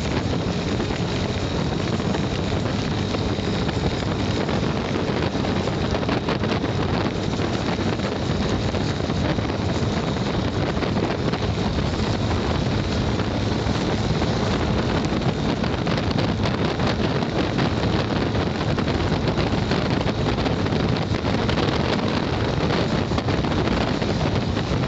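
Steady rush of wind and rain on the microphone of a motorcycle riding through heavy rain, with no let-up.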